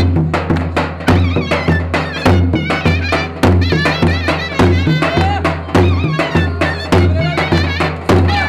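Davul and zurna playing a lively Turkish folk dance tune: a high reedy melody with quick wavering ornaments over a steady deep drum beat.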